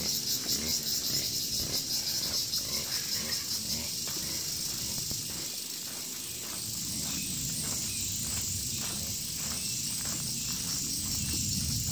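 Chorus of insects droning at a high pitch with a fast, even pulse, steady throughout.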